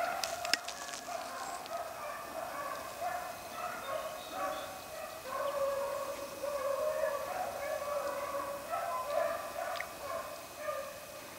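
A pack of rabbit hounds baying on the trail of a running rabbit, several voices overlapping in a steady chorus that thins out near the end.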